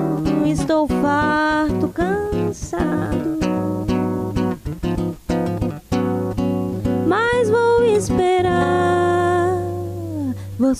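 A woman singing a slow song in Portuguese to acoustic guitar accompaniment. Near the end she holds one long note that falls away.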